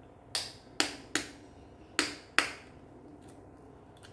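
Five sharp taps against a mixing bowl in quick succession, each ringing briefly.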